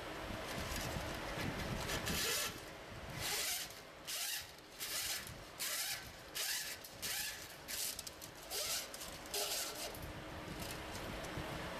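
A run of about a dozen short ratcheting rasps in quick, uneven succession, from hand work on the wiring harness and control board at a pickup truck's frame rail. They start about two seconds in and stop a couple of seconds before the end.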